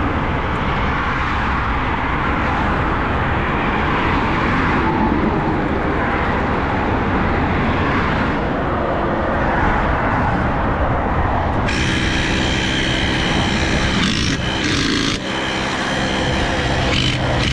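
A car driving at speed, heard from inside: a steady rush of road and engine noise. About two-thirds of the way through, a steady hum with several tones starts abruptly on top of it.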